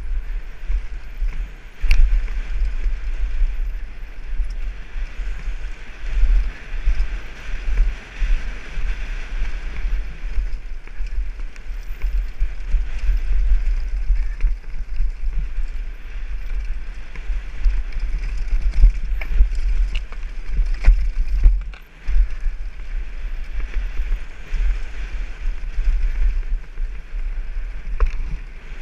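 Downhill mountain bike riding fast over loose gravel and rock, heard from a helmet-mounted camera: heavy wind buffeting on the microphone over tyre noise and rattling from the bike, with a few sharp knocks from stones.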